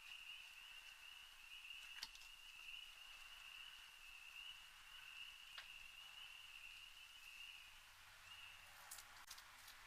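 Near silence with a faint, steady high-pitched insect trill that stops shortly before the end. A few faint clicks, with a cluster of sharper clicks in the last second.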